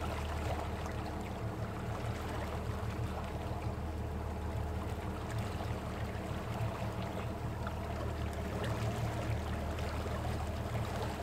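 Boat engine running steadily, a low even drone, with a faint rush of water.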